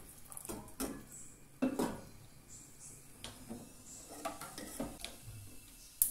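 Scattered knocks and clinks of kitchenware on a gas stove: a metal kettle set down on the burner grate and utensils tapping against pots. There are about half a dozen separate knocks, the sharpest near the end.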